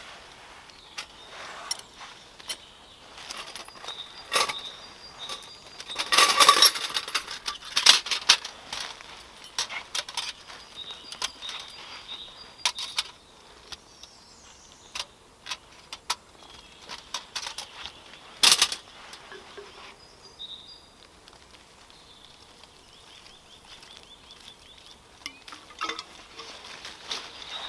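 Stainless steel folding wood stove (Bushbox XL) being handled and packed away: a run of sharp metal clinks and clatters, loudest about six to eight seconds in and again around eighteen seconds, with dry leaves rustling under the hands.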